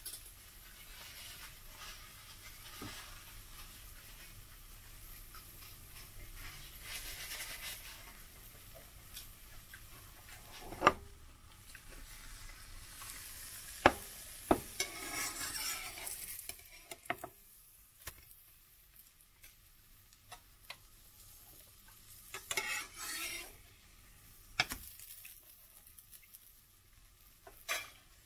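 Pancake frying in a ceramic-coated nonstick pan with a faint steady sizzle. A plastic spatula knocks and scrapes against the pan a few times as the pancake is moved, giving several sharp clicks and short scraping bursts.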